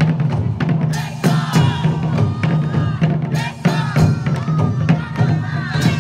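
Japanese taiko drums played by an ensemble: a quick, even beat of deep drum strokes with sharper strikes cutting through, and a pitched line bending above the drumming.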